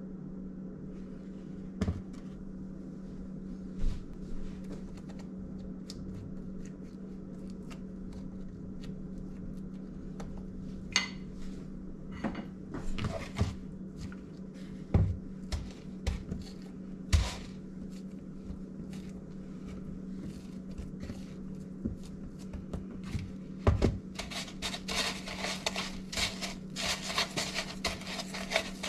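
Hands rolling soft pandesal dough pieces in dry breadcrumbs in a plastic bowl, a dense gritty rustling from about 24 seconds on. Before that, scattered light knocks as the bowl and dough pieces are handled on the silicone mat, over a steady low hum.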